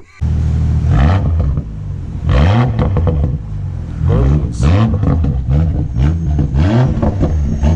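BMW X4 M40i's turbocharged inline-six running and revved in repeated short blips, its pitch rising with each one.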